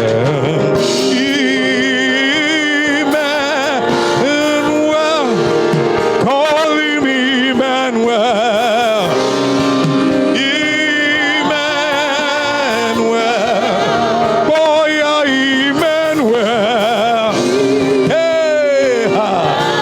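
Gospel worship singing: a solo voice sings long runs with a wide, wavering vibrato over steady held chords.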